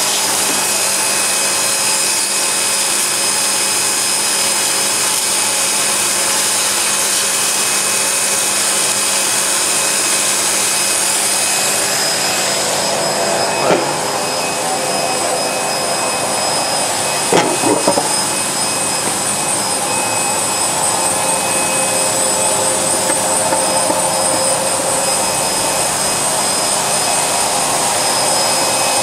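Steady whir of a twin-screw extruder and strand pelletizer line running: the air blower drying the strands and the pelletizer cutting them, with a few steady tones over a loud hiss. A couple of short knocks come about halfway through.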